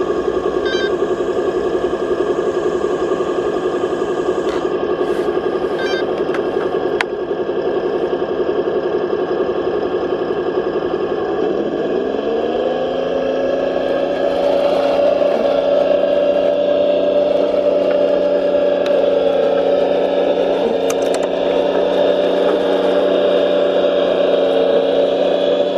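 Engine sound of a 1:16 scale RC military model running steadily, then rising in pitch about twelve seconds in as it speeds up, and holding at the higher pitch.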